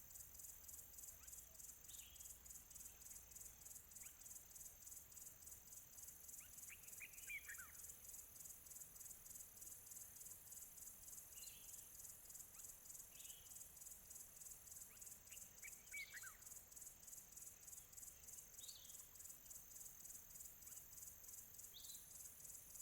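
Faint chorus of crickets chirping in a steady, fast pulsing trill, with short descending calls of distant birds every few seconds and two longer runs of bird notes about 7 and 16 seconds in.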